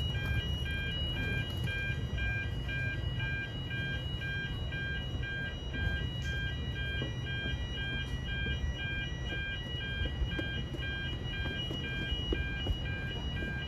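Railway level crossing warning bell ringing: an electronic bell repeating a rapid, steady ding, signalling an approaching train, over a low rumble.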